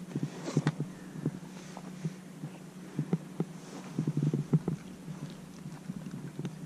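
Irregular soft knocks and thumps on a plastic sit-on-top kayak, picked up through its hull, over a steady low hum.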